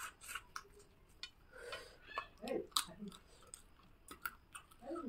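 Close-up mouth sounds of a person eating rice and chicken curry by hand: chewing with many short wet smacks and clicks, and a couple of brief murmurs in the middle.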